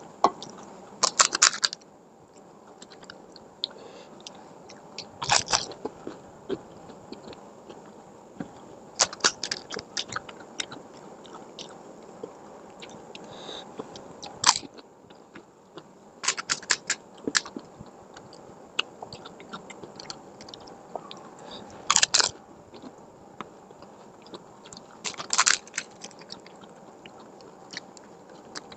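Fuchka (panipuri) being eaten: crisp fried puri shells crunching as they are bitten, about seven times a few seconds apart, with chewing in between.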